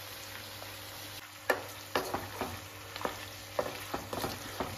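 Pork, potato and tomato pieces sizzling in oil in a non-stick wok. From about a second and a half in, a wooden spatula stirs them, clacking and scraping against the pan at irregular intervals.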